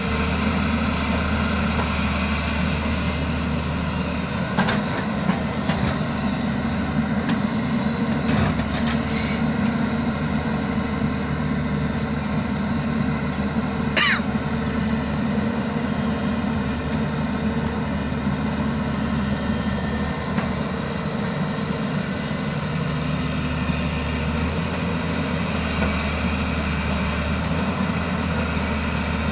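Diesel engine of earthmoving machinery running steadily under work. About halfway through there is one brief, sharp high-pitched sound.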